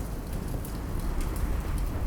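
Crackling wood fire: scattered small pops and snaps over a low, steady rumble.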